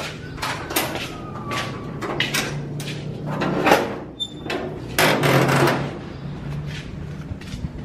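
Footsteps and a door being handled: a string of short knocks with a brief falling squeak in the first two seconds, and louder clattering rattles about halfway through.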